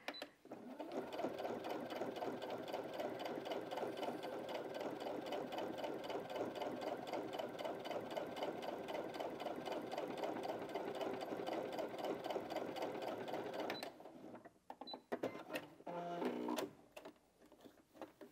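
Brother Innov-is A65 sewing machine stitching a straight stitch through eight layers of folded denim with a jeans needle. It runs steadily and sews through without trouble. It stops about fourteen seconds in, followed by a few clicks and a brief tone.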